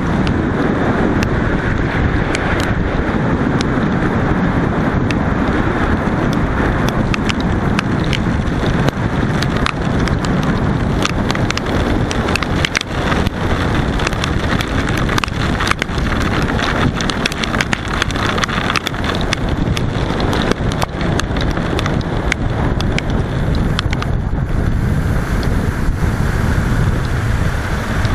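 Bass boat's outboard motor running at speed, with wind rushing over the microphone and frequent short knocks throughout.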